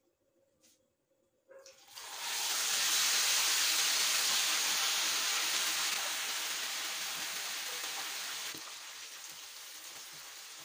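Steamed chicken pieces going into hot cooking oil: after a near-silent start, hard sizzling begins abruptly about two seconds in and slowly dies down as the oil settles.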